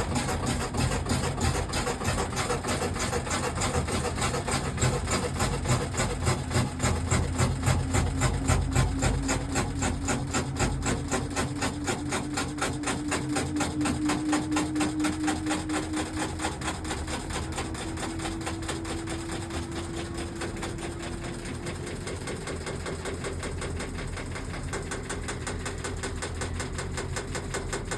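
Panasonic NA-V130EB-PN 13 kg inverter top-load washing machine spinning, with a rapid, rattling knock that gets faster as the drum speeds up, and a motor whine slowly rising in pitch. The knocking is the abnormal spin noise from a failed suspension rod.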